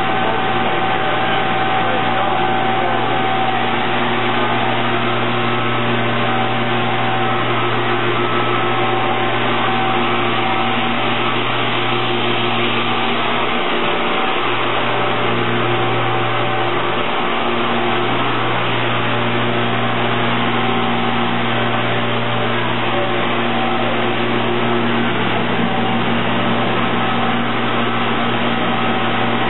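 Steady drone of running plastic injection-moulding machinery, with several steady tones over a low hum and no distinct strokes.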